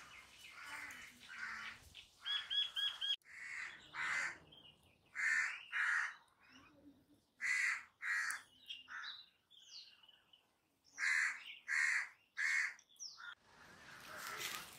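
Crows cawing in short runs of two or three calls, with smaller birds chirping between them, including a quick run of four high chirps about two seconds in.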